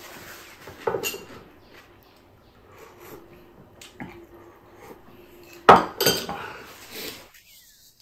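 A spoon clinking against a small bowl, and dishes knocked down on a wooden table: a handful of separate clinks, the loudest a little past halfway.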